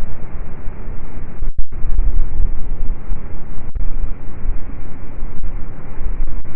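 Strong wind buffeting the microphone: a loud, unsteady low rumble of gusts with a few brief cut-outs in the audio.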